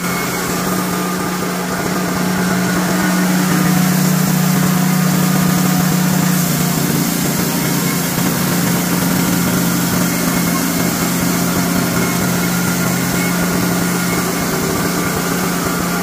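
Honda gasoline engine on a Wood-Mizer LT40 sawmill running steadily while the sawhead travels along the log. Its pitch lifts slightly a few seconds in, then settles back.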